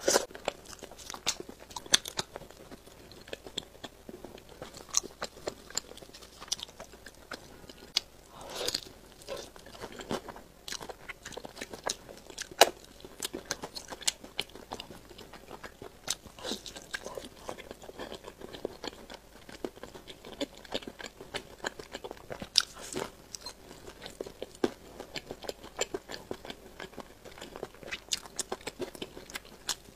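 Close-up chewing and crunching of fried chicken, with many sharp, irregular crunches from the crisp coating between softer chewing.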